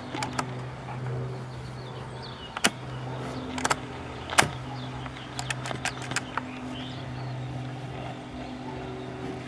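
RCA RLS47W clock radio's speaker giving a steady hum with sharp clicks and crackles, the AM band having gone dead.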